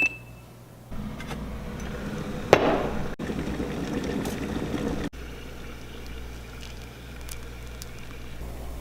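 Liquid pouring or running, with a sharp knock about two and a half seconds in and two brief drops in the sound.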